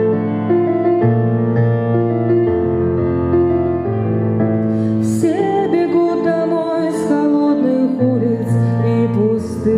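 Kawai ES6 digital piano playing a slow run of sustained chords. About halfway through, a woman's voice comes in singing over it.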